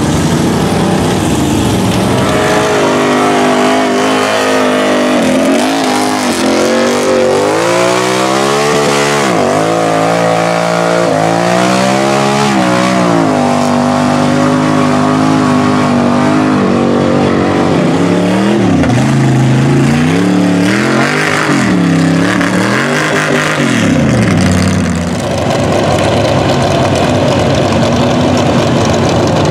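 Lifted mud trucks on giant tires digging through mud pits, their engines revving hard, the pitch climbing and dropping again and again as the drivers work the throttle.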